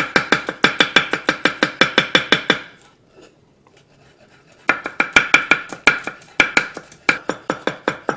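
Chef's knife rapidly chopping garlic on a wooden cutting board, about six to seven sharp knocks a second as the clove is minced. The chopping stops for about two seconds a little after two and a half seconds in, then starts again at the same fast pace.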